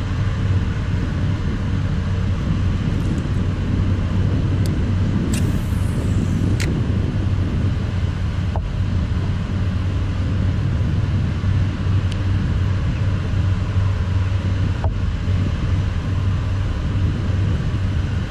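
Steady rumble of road traffic on a bridge, with a low hum, and a few light clicks and taps over it.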